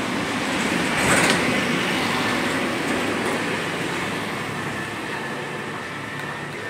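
A passing motor vehicle: steady traffic noise that swells about a second in and then slowly fades.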